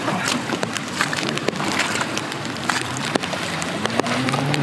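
Steady hiss of rain with scattered splashes and small clicks of muddy water and mud around a dirt bike being hauled out of a flooded creek. Near the end a low, steady drone comes in, rising slightly at first.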